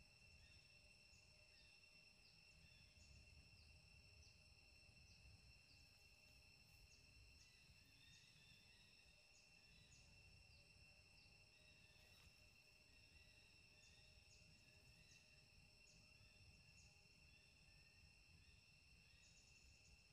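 Very faint steady high-pitched insect drone, several continuous tones at once, with short high chirps repeated irregularly over it.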